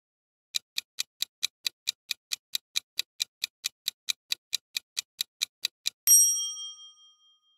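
Quiz countdown-timer sound effect: quick, even clock-like ticking at about five ticks a second for some five seconds, ending in one loud, bright bell-like ding that rings out over about a second and a half as the answer is revealed.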